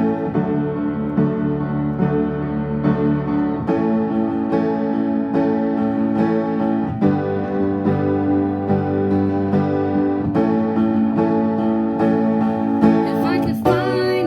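Piano playing a steady run of chords, with fresh notes struck about every half second.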